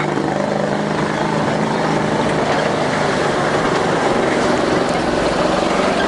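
Open-top off-road truck driving along a shallow river over the stony riverbed, its engine running steadily under a loud, even rush of noise.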